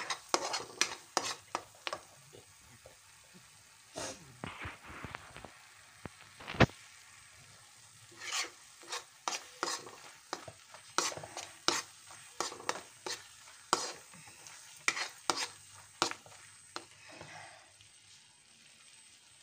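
Steel spatula scraping and knocking against a kadhai as a thick spiced masala paste is stirred and fried in oil. The strokes come irregularly, with a few short pauses and one sharper knock about six and a half seconds in.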